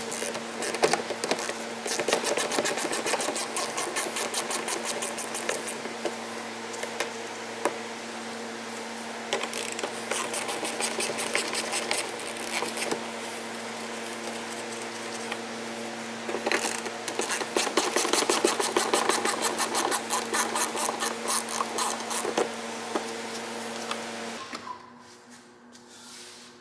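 Hand socket ratchet clicking rapidly in long bursts as fasteners in an SUV's front wheel-well liner are backed out, over a steady low hum that stops near the end.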